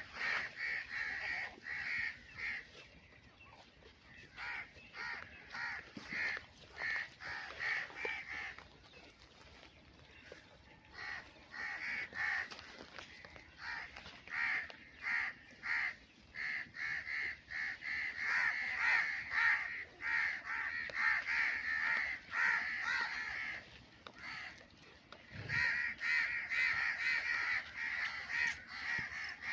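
Crows cawing over and over in quick runs of short calls, with brief lulls between the runs.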